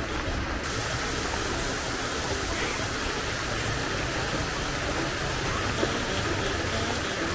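Steady hiss of oil sizzling in a deep-frying wok.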